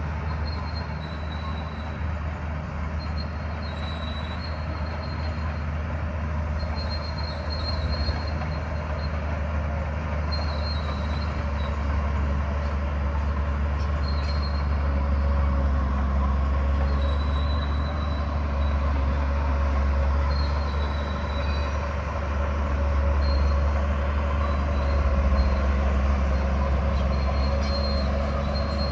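Komatsu bulldozer running steadily under load with a low diesel drone, pushing stone, its steel tracks giving short high squeaks every few seconds.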